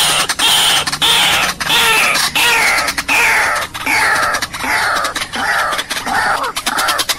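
White-breasted waterhen calling: a loud, steady series of descending notes, roughly one and a half a second, with sharp clicks between them.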